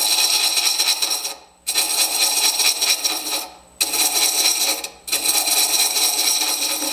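Hand thread chaser cutting internal threads into an end-grain wooden insert turning slowly on a lathe: a ringing, rasping scrape in four passes of about a second and a half each, with short breaks between.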